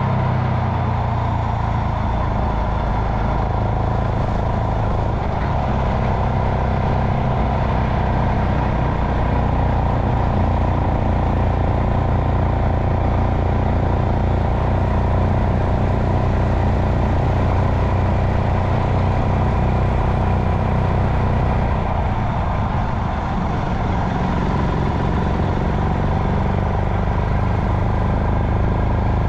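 Royal Enfield Himalayan's single-cylinder engine running at a steady, unhurried road speed, with a constant rush of wind and road noise over it.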